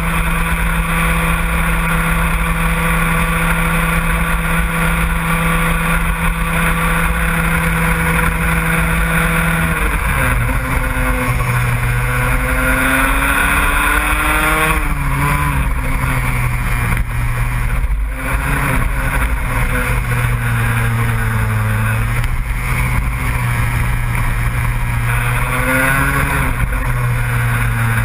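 A vehicle's engine runs at one steady speed, then about a third of the way through its pitch drops, and for the rest of the time it rises and falls repeatedly as the engine speeds up and slows.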